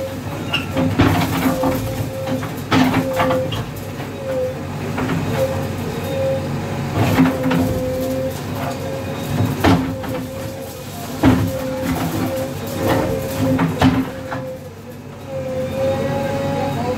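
JCB backhoe loader's diesel engine and hydraulics running with a steady whine as the bucket works against a brick wall, with about six sharp knocks and cracks of masonry breaking and falling. The machine sound dips briefly near the end.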